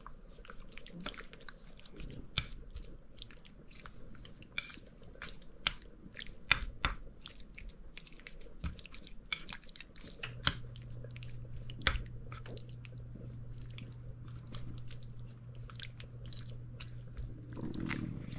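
Raw pork being mixed with its marinade in a small bowl: wet squishing with scattered sharp clicks and taps. A low steady hum comes in about ten seconds in.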